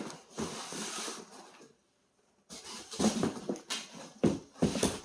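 Albums and packaging being handled and taken out of a cardboard shipping box: a rustle, a short gap, then a series of knocks and scrapes.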